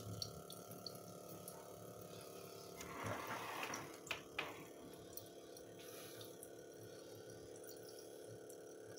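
Water trickling and dripping from the overflow tube of a small pump-driven settling rig into a cloth filter bag over a steel sink drain, over the steady hum of a small 12-volt water pump. A brief louder rush about three seconds in, followed by two clicks.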